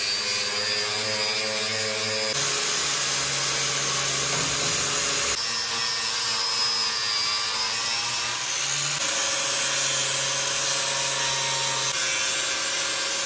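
Angle grinder with a flap disc grinding steel: a steady motor tone under a harsh abrasive hiss as old weld is ground off the truck frame's bracket mounts to prep them for welding. The pitch and level shift abruptly a few times.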